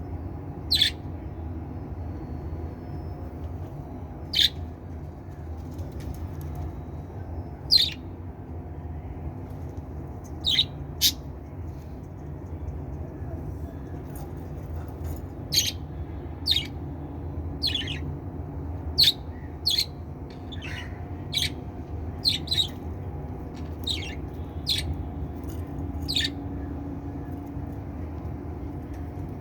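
Pet budgerigars giving short, sharp chirps and squawks at irregular intervals, about twenty in all, over a steady low background hum.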